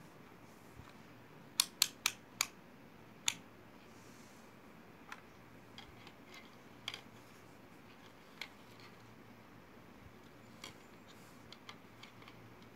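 Sharp plastic clicks and taps from the opened plastic case of a DT266 clamp meter being handled: five loud clicks in quick succession one to three seconds in, then scattered fainter ticks.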